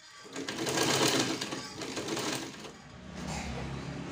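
Sewing machine running, stitching a hem along the edge of tent fabric. It is loudest and harshest for the first couple of seconds, then settles to a steadier run with a low hum about three seconds in.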